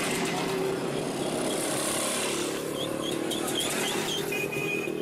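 Vintage motorcycle engine running steadily. About three seconds in, a quick run of short high chirps sounds over it.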